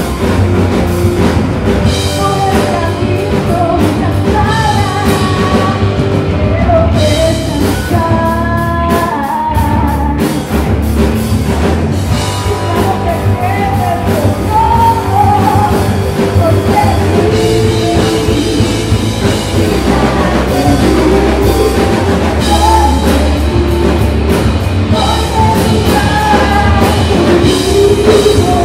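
Rock band playing live: drum kit, bass and electric guitar under a woman's sung lead vocal.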